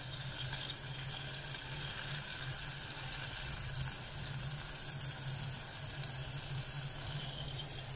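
Longganisa sausages sizzling steadily in a saucepan, frying in the fat rendered from the sausages themselves with no oil added. A low steady hum runs underneath.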